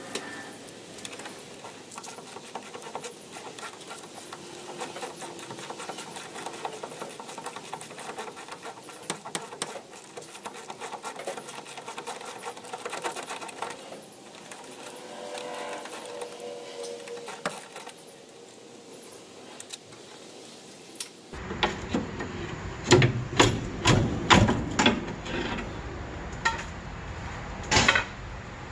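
A ratchet clicking quickly and steadily as it turns the rusty mounting nut of a truck's rear shock absorber. About two-thirds of the way in this gives way to a run of loud, sharp metal knocks and clanks.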